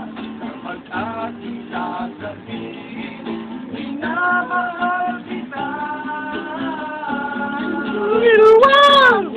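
Live acoustic music: several acoustic guitars strumming chords while a man sings, holding long notes. The loudest part is a sung note that bends up and back down near the end.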